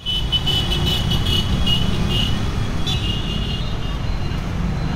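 Road traffic noise: a steady low rumble of passing vehicles, including a motorcycle, with a run of short, high-pitched chirps over the first couple of seconds and again about three seconds in.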